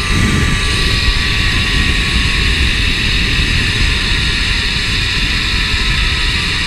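Wind rushing hard over a GoPro's microphone during a zip-line ride at very high speed, a steady low rumble. Over it runs the constant high whir of the trolley's pulleys rolling along the steel cable.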